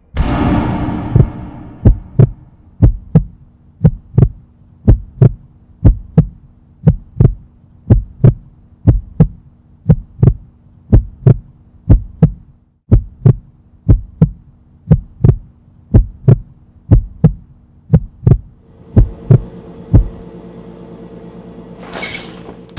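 Heartbeat sound effect: paired low thumps, lub-dub, repeating about once a second over a steady low hum. The beats stop near the end, and a brief sharp noise follows.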